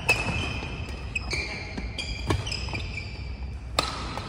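Badminton rally: sharp racket strikes on the shuttlecock, the loudest just after the start and near the end, with short high squeaks of players' shoes on the court floor between them.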